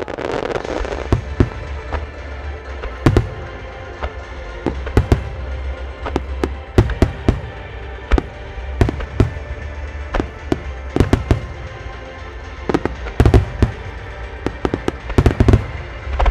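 A fireworks display: aerial shells and star mines bursting in a rapid, irregular run of bangs, thickest in clusters near the end, over music from the show's loudspeakers with its own sustained tones. It starts suddenly and stays loud throughout.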